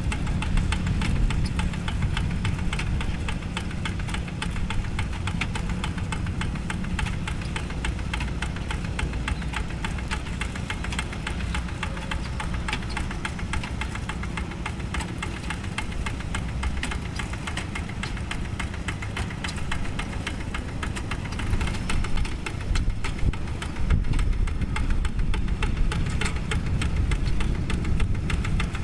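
Quick G1000 Boxer two-wheel hand tractor's single-cylinder Kubota diesel running steadily under load, pulling a plow through wet paddy mud, with a fast, even clattering beat. It grows louder over the last seven seconds or so.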